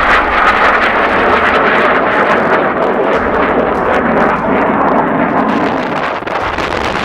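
Panavia Tornado GR4's twin RB199 turbofan jet engines, loud as the jet flies by low, the rushing noise sinking lower in pitch and easing off slightly toward the end as it draws away.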